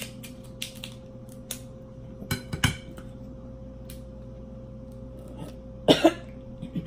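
Sharp clicks and cracks of king crab leg shell being cut with kitchen scissors and broken apart by hand, with two short bursts of coughing, about two and a half seconds in and again near the end, from a bite that went down the wrong way.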